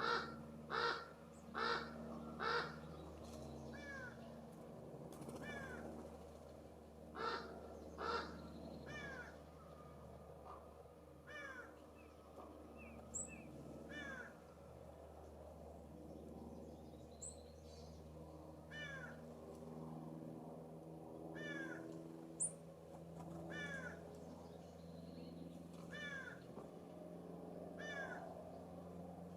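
California scrub-jay giving harsh, raspy calls: four in quick succession at the start and two more about seven seconds in. A softer, down-slurred call from another bird repeats every couple of seconds throughout, with a few thin high chips.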